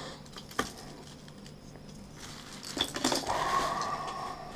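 Hard plastic fishing lures clicking and clinking as they are handled and set down together on a desk mat. There are a few sharp clicks about half a second in and a quick cluster of clicks around three seconds in, then a faint steady noise.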